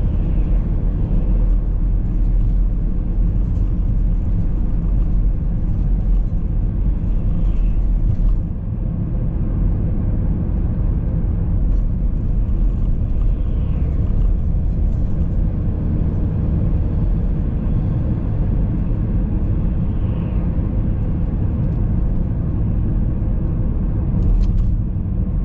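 Car driving at speed along a busy main road: a steady low rumble of engine and tyres.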